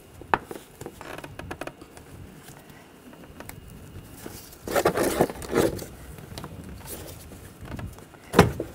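Rubber air intake hose being twisted and worked loose from its fitting: scattered clicks and rubbing, a burst of scraping about five seconds in, and a sharp click near the end.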